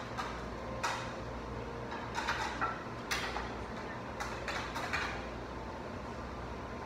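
Tableware clinking: chopsticks and a ladle tapping against bowls and a metal cooking pot, a scatter of light clinks, some in quick clusters, over a steady low hum.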